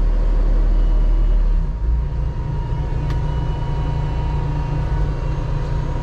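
Merlo telehandler's diesel engine being cranked up from the cab, then settling into a steady idle a little under two seconds in.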